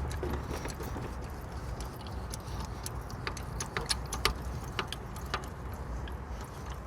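Hydraulic jack being pumped to lift the rear suspension arm, its handle and fittings giving sharp metallic clicks and clinks, about two a second in the middle stretch, over a low steady rumble.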